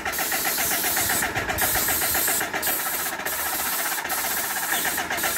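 Graco GX19 airless paint sprayer's electric piston pump running steadily with a fast, rhythmic ticking chatter while paint is being sprayed, over a steady hiss that drops out briefly four or five times.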